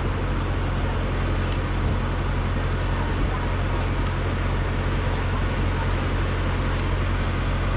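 Steady low rumble and rushing noise of a moving vehicle, heard from on board.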